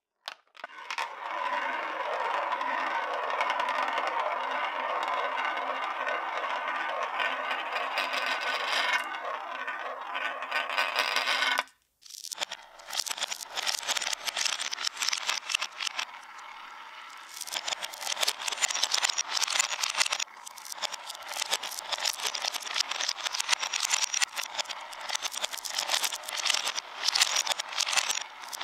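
A glass marble rolling round a plastic vortex funnel bowl, a steady continuous rolling sound for about twelve seconds. After a short break, glass marbles rolling down a wooden spiral track, with many quick clicks and rattles as they knock against the wood and each other.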